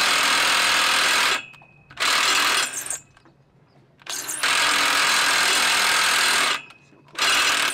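Cordless power driver with a long socket driving a bolt into the concrete pier through a post's base plate, running in four bursts, the longest about two and a half seconds.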